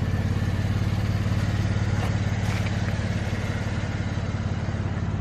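2016 GMC Canyon pickup's engine idling steadily, a low even hum with a fast regular pulse.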